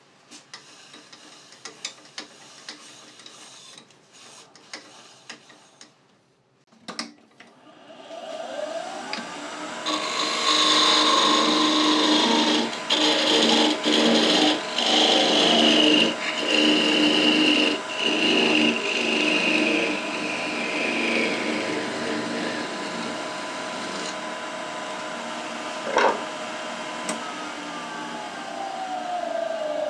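Faint handling clicks, then a wood lathe runs while a parting tool cuts through a small spinning softwood piece. It is a loud scraping cut with a whine that slowly falls in pitch, broken by several short pauses. The cut eases off, and there is a sharp click near the end as the piece comes free.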